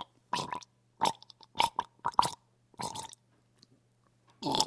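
A person gargling water, in about six short, separate wet bursts from the mouth and throat.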